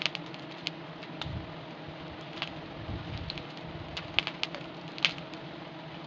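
A swarm of wild honeybees around their cliff combs, humming steadily, with scattered sharp clicks and crackles.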